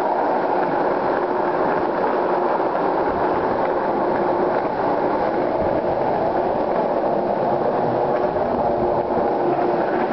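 Skateboard wheels rolling fast and without a break over the concrete ramps of a parking garage: a steady rolling roar with a faint hum.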